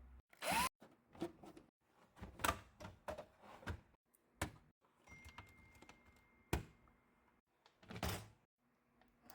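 Scattered clicks, taps and knocks as the plastic casing and parts of a PlayStation 4 console are handled and taken apart, in short bursts with dead-silent gaps between.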